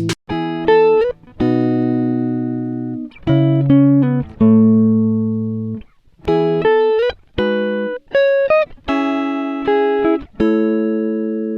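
Background music: slow plucked-string notes and chords. Each note starts sharply and rings out fading, and a few slide up in pitch.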